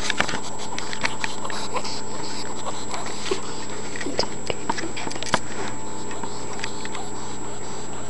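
A pet squirrel breathing hard and wheezing after exertion, held right up against the microphone, with many small irregular clicks and rustles of fur and blanket over a steady hiss. The owner fears the wheeze is a breathing problem.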